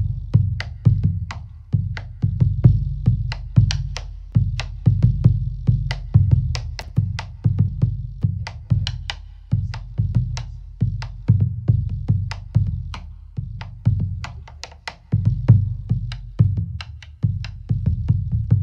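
Bombo legüero playing a steady repeating rhythm: deep booming strikes mixed with sharp high clicks.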